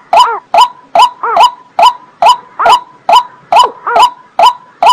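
Watercock calling: a steady series of short, hollow, loud notes, about two a second. Each note starts sharply and its pitch rises and falls.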